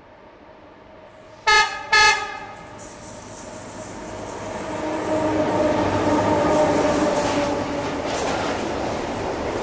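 Two short blasts of an electric locomotive's horn, a chord of several tones, about a second and a half and two seconds in. Then a container freight train hauled by two electric locomotives passes close by, its running noise growing louder and staying loud as the locomotives and wagons go past.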